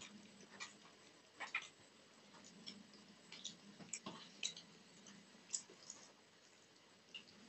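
Close-miked eating sounds from hand-eating chicken curry and rice: irregular wet mouth clicks and smacks from chewing, with fingers squishing gravy-soaked rice against a steel plate.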